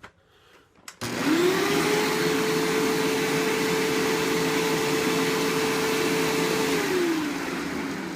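Hoover WindTunnel Self-Propelled Ultra upright vacuum cleaner switched on with a click: the motor spins up quickly, runs steadily with its rushing suction, then winds down near the end after being switched off.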